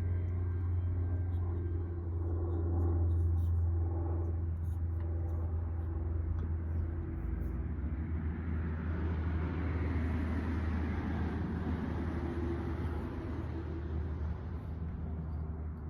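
A steady low rumble. From about halfway in, a broad rushing noise swells up and fades again near the end.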